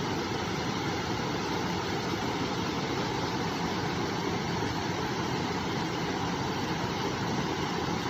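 River water flowing steadily, an even, unbroken rush of noise.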